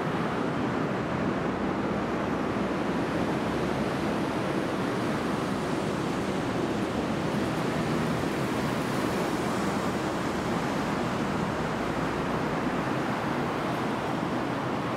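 Steady rushing noise inside a concrete pedestrian underpass, even throughout with no distinct events.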